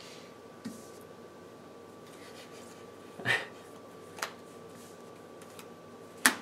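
Playing cards being handled and set down on a playmat over a wooden table: a few separate soft slides and taps, the sharpest near the end.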